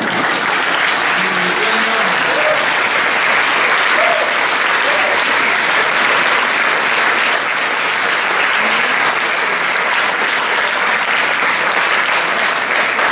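Large theatre audience applauding steadily, a dense sustained clapping, with a few voices calling out in the first seconds.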